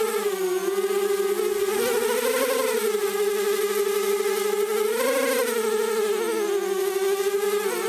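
Mini quadcopter's electric motors and propellers whining close to the nose-mounted camera: a steady buzz whose pitch swells up with throttle about two and a half seconds in and again about five seconds in.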